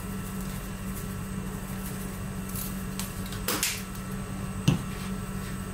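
Steady low hum with a brief rustle about three and a half seconds in and a single sharp click near five seconds: handling of a plastic garlic powder shaker over a bowl of breading flour.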